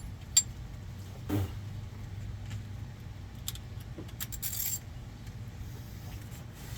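Metal hand tools and hardware clinking and scraping in scattered sharp clicks and short scrapes while working on a Jeep's suspension, over a steady low hum.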